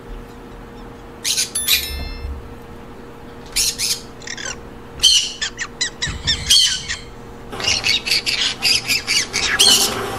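Green-cheeked conures giving short, harsh squawking calls. The calls are scattered at first, then come in a quick run of several a second over the last few seconds.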